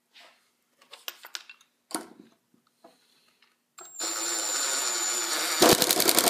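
An 18-volt cordless drill boring a hole into a small wooden spacer block held with pliers. A few light clicks and knocks from handling the pliers and block come first. The drill then starts about four seconds in with a steady whine, growing louder and rougher, with a fast rattle, near the end.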